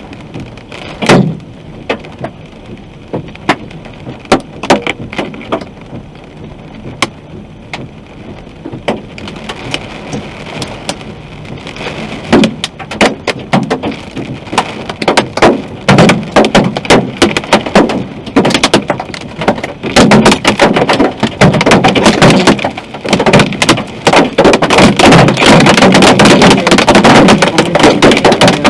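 Hailstones striking a car's roof and windshield, heard from inside the car: scattered sharp hits at first, building into a dense, loud clatter from about halfway through.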